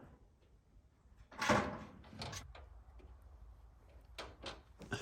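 Metal roofing sheets being handled: one loud scraping slide about a second and a half in, then a few light knocks and clicks.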